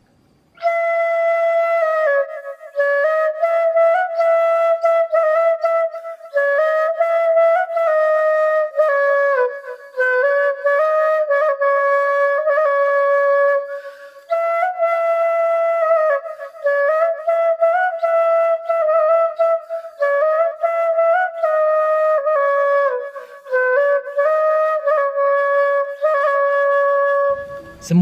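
Bamboo suling flute playing a slow melody, mostly long held notes in phrases, with short breaks for breath every few seconds.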